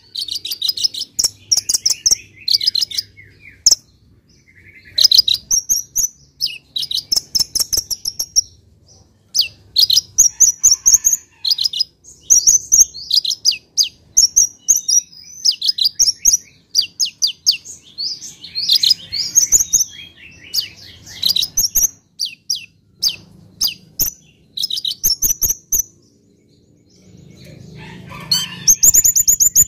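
Caged male purple-throated sunbird (kolibri ninja) singing: long runs of rapid, high-pitched chirps and trills in bursts with short pauses. A low rushing noise rises under the song near the end.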